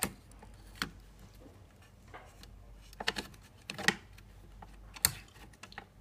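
Plastic hard-drive sled clicking and knocking as it is handled and lined up with the drive bay: scattered sharp clicks, with a quick cluster of several about three to four seconds in.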